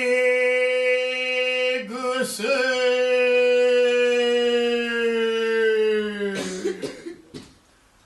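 A man's voice intoning one long, drawn-out syllable in Zen ceremonial chant, held at a steady high pitch with a brief catch about two seconds in. The pitch slides slightly down before the voice trails off about six and a half seconds in.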